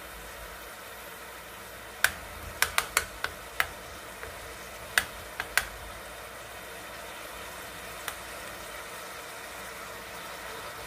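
Metal spoon stirring carrots and coconut oil in an aluminium pot, tapping sharply against the pot about ten times, mostly between two and six seconds in, with one more tap near the end. Under it, a steady sizzle of the mixture cooking over low-to-medium heat.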